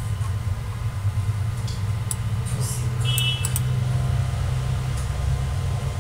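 Steady low hum with a few faint sharp clicks and a brief high beep about three seconds in.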